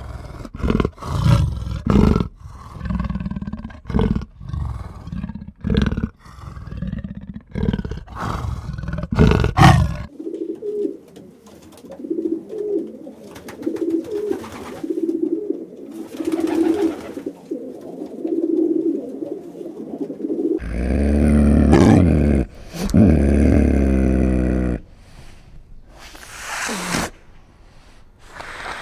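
Buffalo grunting and bellowing: a run of short, loud calls, then about ten seconds of rhythmic pulsing calls, then a long, deep bellow starting about two-thirds of the way through, followed by a few shorter calls.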